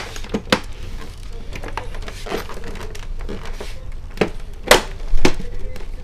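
Several sharp plastic knocks and clicks as hands handle the back cover and fold the stand of an all-in-one desktop computer lying face down. The loudest knock comes a little before the end.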